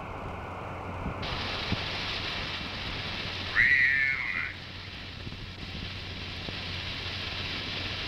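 X-15 rocket plane's landing skids and nosewheel touching down and sliding across a dry lakebed: a steady scraping rush that turns brighter about a second in. A short high-pitched squeal comes a little after the halfway point and is the loudest sound.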